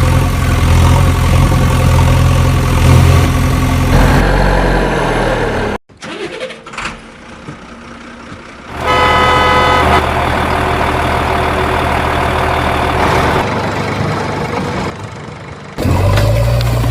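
Backhoe loader's diesel engine running steadily, heard in several clips joined by abrupt cuts, with a quieter stretch a little after halfway.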